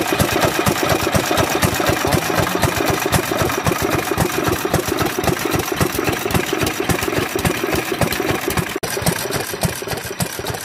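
BEST hopper-cooled single-cylinder kerosene stationary engine, made by Sekiya Nōki, running steadily. Its firing strokes and mechanical knocks make an even, rhythmic beat.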